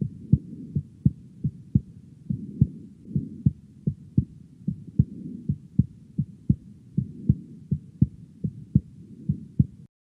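Heart sounds recorded through a digital stethoscope: a steady run of lub-dub beats with a faint extra third heart sound (S3) just after the second sound, giving a "lub-de-dub" rhythm of about two to three thumps a second. The S3 comes from rapid ventricular filling; it can be normal in young people but in older patients can indicate heart failure. The recording stops just before the end.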